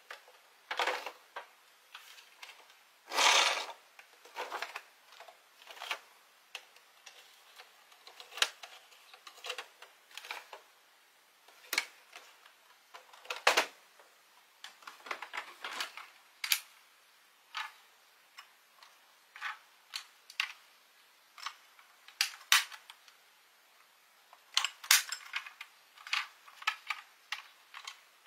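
Toy buses clicking and knocking against each other and the cardboard box as they are picked up and handled, with irregular small clacks and a louder scrape a little over three seconds in.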